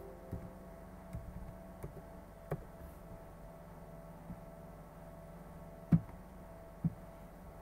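Scattered computer keyboard and mouse clicks: a few light clicks while numbers are typed in, then a louder single click about six seconds in and one more just after. A faint steady hum runs beneath.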